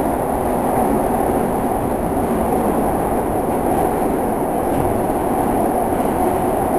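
Steady running noise heard inside a SEPTA Market-Frankford Line Adtranz M4 subway car, the wheels rolling on the rails as the train moves along at an even pace.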